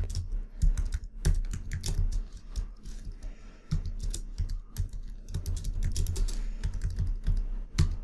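Typing on a computer keyboard: a quick, irregular run of key clicks, over a steady low hum.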